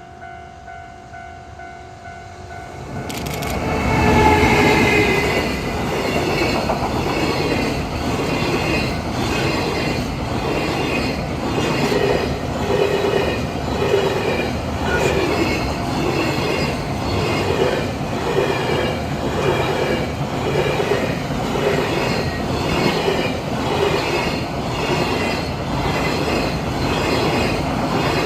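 JR Freight EF210 electric locomotive and its freight train passing over a level crossing. The crossing's warning bell rings at first. About three seconds in, the train arrives suddenly and loudly, and then the wagons' wheels clatter over the rail joints in an even rhythm as they run past.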